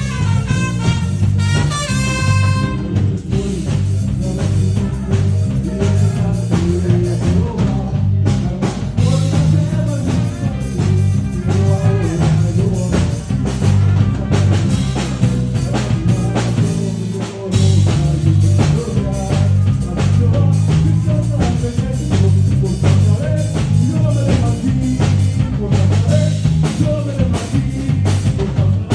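A live church band plays a worship song: trumpets over electric bass, drum kit and piano, with a heavy, steady bass line. The trumpets play a stepping phrase in the first few seconds, and the bass and drums drop out briefly a little past halfway before the full band comes back in.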